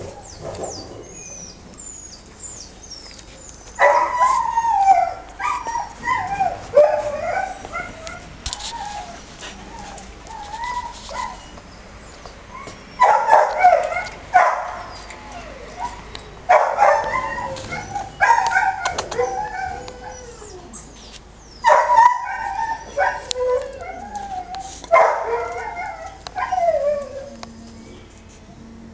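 Dogs barking and yelping in five loud bouts of a few seconds each, with quieter whining calls between them.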